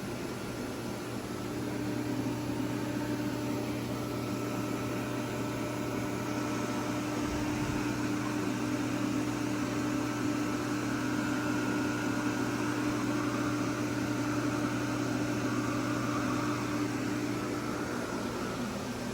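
A CNC vertical mill running: a steady machine hum with a constant low tone and a fainter higher whine. It grows a little louder about two seconds in and eases off near the end.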